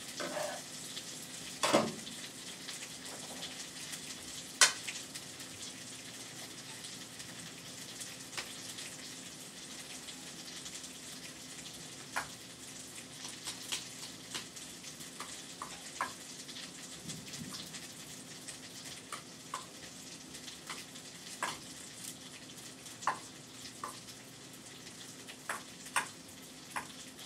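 Chicken frying in a pan with a steady sizzle, under irregular clinks and scrapes of a spoon stirring green beans and sauce in a metal mixing bowl.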